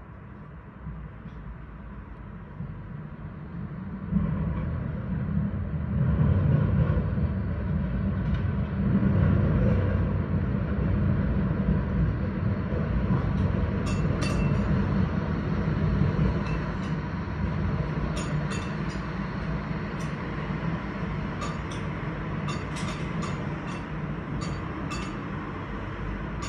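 A rail vehicle rumbling past close by: a low rumble that swells about four seconds in and holds, with light metallic clinks from about halfway through.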